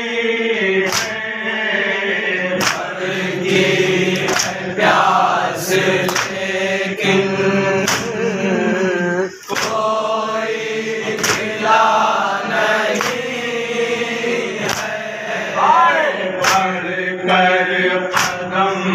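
Male mourners chanting a nauha together with a lead reciter, while hands strike chests in time with it: a sharp matam slap about every second and a half to two seconds, over the steady chanting.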